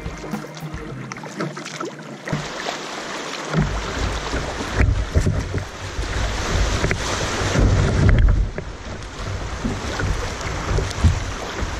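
Kayak on a river: at first a paddle dipping, with water dripping off the blade. From about three and a half seconds in, shallow water rushes over rocks in a riffle, with wind buffeting the microphone in a low rumble.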